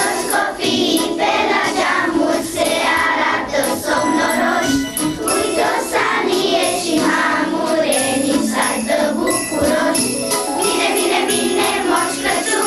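A children's choir singing a Christmas carol in unison over a music accompaniment with jingle bells.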